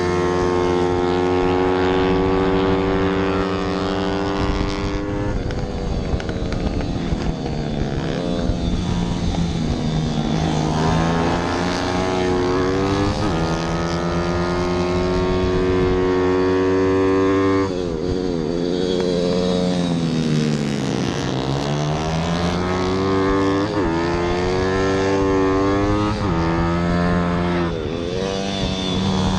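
Onboard sound of a 160 cc pit bike engine racing at high revs over wind rush. The pitch holds high on the straights, drops sharply several times as the rider shifts down and brakes into corners, then climbs again through the gears.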